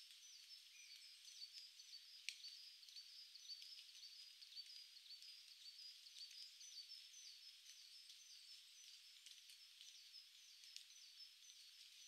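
A small songbird repeating short, thin, high notes in a long, even series, about two to three a second, faint over a soft background hiss. A single sharp click about two seconds in.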